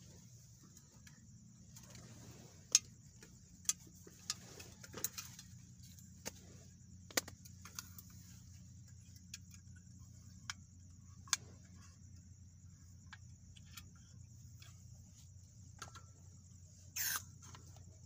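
Scattered light clicks and knocks of camping gear being handled and set down on a small folding table, over a steady low background noise, with a short, louder scrape or rustle near the end.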